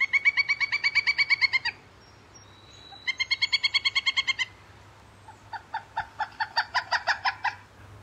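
Pileated woodpecker call played back from a battery-powered device. It comes as three runs of rapid, evenly spaced ringing notes, about ten a second, and the third run is slower and lower.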